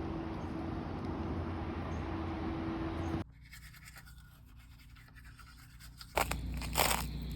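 A steady hum with a low drone stops abruptly about three seconds in. After a quieter stretch, crunching and cracking of ice and frozen snow being broken begins near the end.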